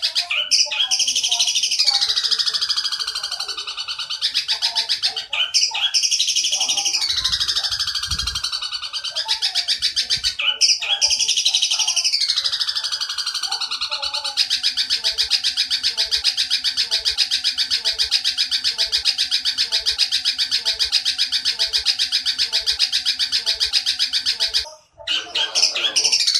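Long-tailed shrike (cendet) singing imitated tree-sparrow chatter: three quick chattering phrases whose pitch falls over about two seconds each, then one long, fast, even trill of about ten seconds, broken off briefly near the end before the chatter starts again.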